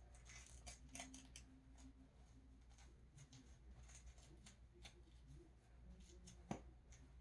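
Faint rustling and scratching of an elastic bandage being wound around a wrist and hand, with soft clicks, and a slightly louder tap about six and a half seconds in.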